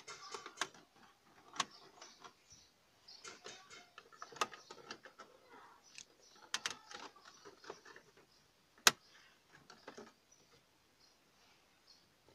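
Faint scattered clicks and rustles of hands handling the hard plastic dashboard trim and a tape-wrapped prying tool, with one sharp click about nine seconds in.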